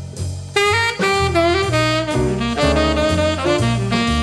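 Jazz music with a saxophone playing the melody over a moving bass line.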